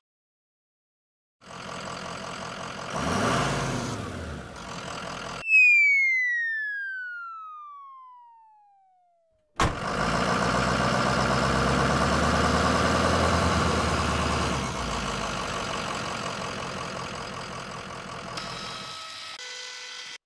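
Cartoon truck sound effects. A truck engine runs, then a long descending whistle glides down and fades out. After a click, the engine runs again steadily and louder for about five seconds, then more quietly.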